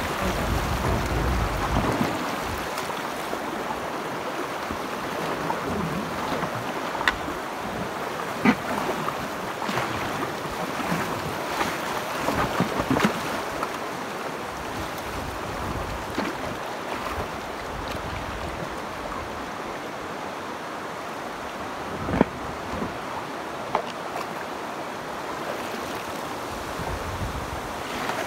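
Shallow river water rushing and splashing over rocks around a drifting packraft, with scattered short knocks and splashes, two of them louder. Wind rumbles on the microphone for the first two seconds or so.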